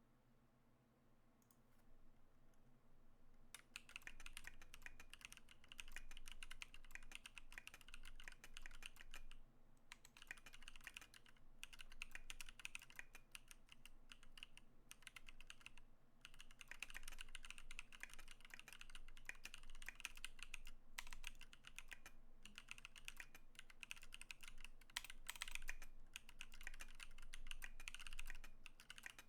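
Typing on a KBDfans KBD19x mechanical keyboard with factory-lubed Holy Panda tactile switches: fast, continuous key clacks starting about three and a half seconds in, with a few short pauses.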